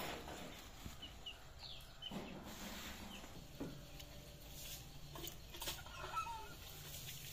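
Chickens clucking faintly, with a few short calls. Soft handling sounds come from ripe palm pulp being squeezed by hand in a steel bowl.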